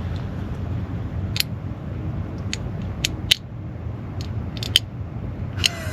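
A drink can being cracked open slowly: a series of small clicks from the tab, then a sharp snap near the end, over a steady low background rumble.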